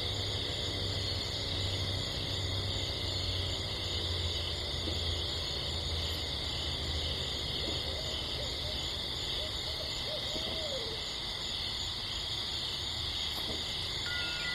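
Night soundscape: a steady high chirring chorus over a low hum, with a few wavering hoot-like calls about eight to eleven seconds in. Two thin steady tones come in near the end.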